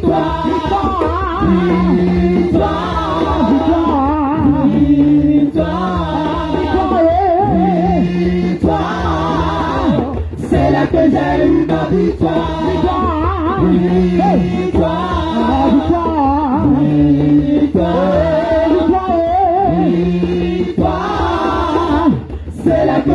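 A small group of women singing a gospel song together into microphones through a PA, their voices wavering with vibrato, over a low line of held notes that repeats every few seconds.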